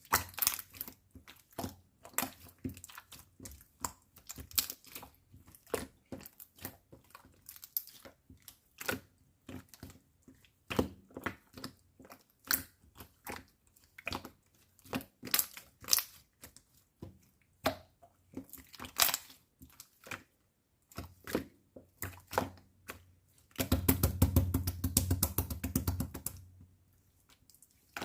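Strawberry-milk slime being squeezed and poked by hand, giving irregular sticky clicks and pops. About three-quarters of the way through comes a dense run of rapid crackling pops lasting about three seconds.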